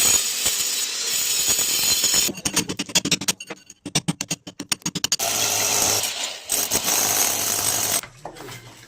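A power tool running in loud bursts, with a stretch of rapid, evenly spaced knocks in the middle.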